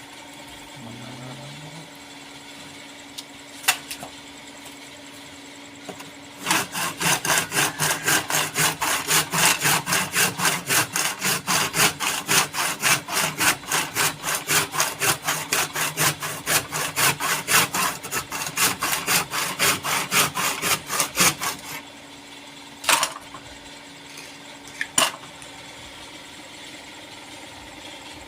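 Wood being worked with rhythmic back-and-forth strokes, about three to four a second, starting about six seconds in and stopping after about fifteen seconds, over a steady low hum. A couple of single knocks follow.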